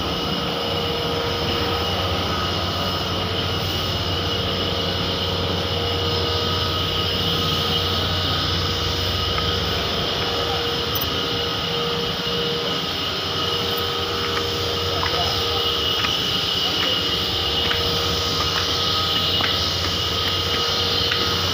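Steady drone of heavy machinery: a constant hum with several fixed tones over an even rushing noise that does not change. A few faint clicks come in the last several seconds.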